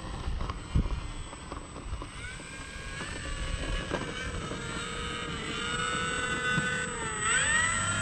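Electric motor and propeller of an FMS Ranger 1800mm RC plane whining at low throttle as it taxis in. The pitch holds fairly steady, then dips and rises again near the end. A single thump comes about a second in.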